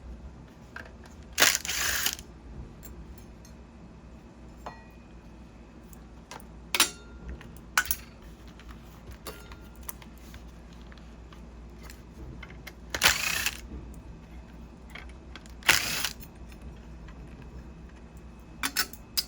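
Hand tool work on a car radio unit: scattered sharp clicks and three short, loud rasping clatters as a Torx driver takes the screws out of the unit's metal side brackets.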